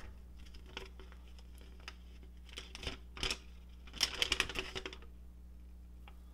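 A few light clicks and taps of handling, then a folded paper sheet crinkling as it is unfolded about four seconds in.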